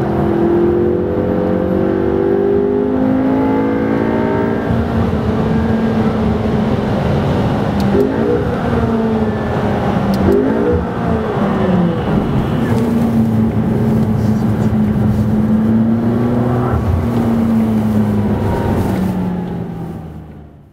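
McLaren MP4-12C's twin-turbo V8 heard from inside the cabin while driving on a wet track, its pitch rising and falling with throttle and gear changes, with quick pitch swings about eight and ten and a half seconds in, over dense road noise. The sound fades out at the end.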